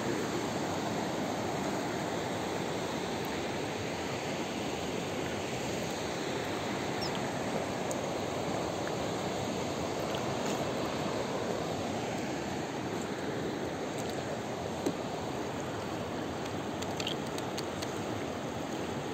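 Shallow mountain river running over a stony bed, a steady rushing with a few faint ticks.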